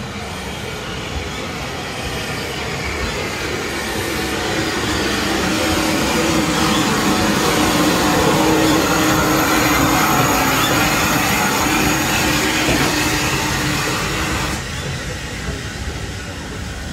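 Steam locomotive running in along the platform and passing close by, its sound building to its loudest about halfway through, then its carriages rolling past, dropping back a little near the end.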